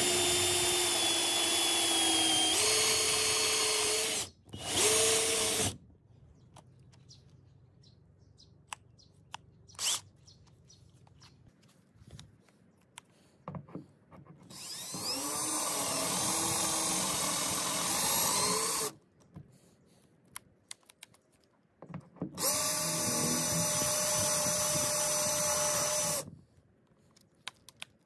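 Cordless drill spinning a rivet removal tool's bit, drilling the heads off solid rivets in aluminium window trim. A steady whine runs for about four seconds, then a short burst, then two more runs of about four seconds each, starting around 15 and 22 seconds in, with small clicks in the quiet gaps.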